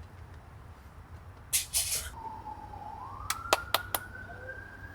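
Emergency vehicle siren wailing, starting about two seconds in as a slow rising tone that levels off near the end. A few short clicks and rustles sound around it.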